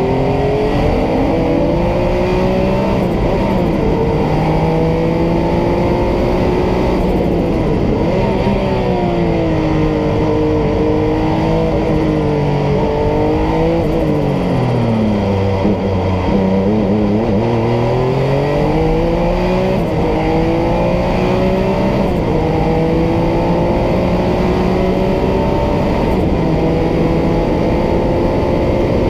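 Porsche 962C's twin-turbo flat-six heard from inside the cockpit at full speed, its pitch climbing through upshifts. About halfway through it drops steeply through downshifts as the car slows, then climbs back up through the gears.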